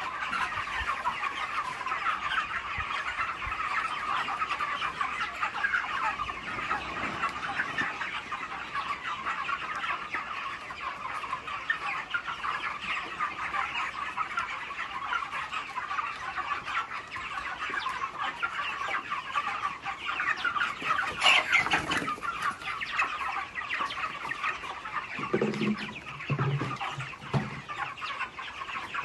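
A large flock of chickens clucking continuously. A sharp knock about three-quarters of the way through is the loudest sound, and a few short, lower sounds come near the end.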